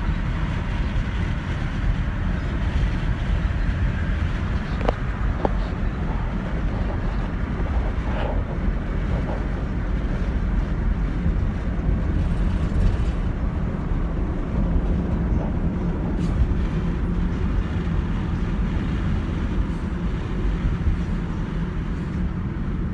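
Steady road and engine rumble inside the cabin of a moving van, even throughout with no speech.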